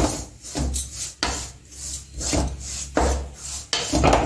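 Wooden spatula scraping and rubbing across the bottom of an aluminium pan in repeated strokes, about two a second, as it stirs dry rice flour and grated coconut being roasted.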